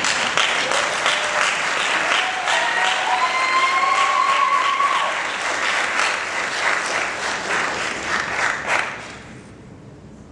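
Audience applauding a recital performer, dense clapping that dies away about nine seconds in, with one voice calling out briefly in the middle.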